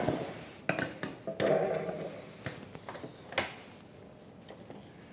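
Wire cooling rack clinking and rattling against a metal Bundt pan as the pan is turned over onto the rack to unmold a cake: a few separate knocks in the first three and a half seconds, the sharpest one just before the end of them.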